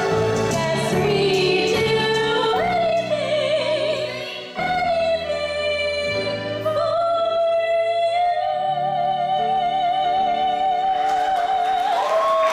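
A show tune sung into microphones over musical accompaniment, building to a long held note with vibrato and stepping up to a higher final note near the end.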